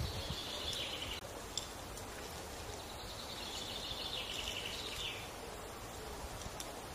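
Outdoor ambience: a steady rustling hiss, with a high, rapid buzzing trill heard twice, for about the first second and again from about three to five seconds in.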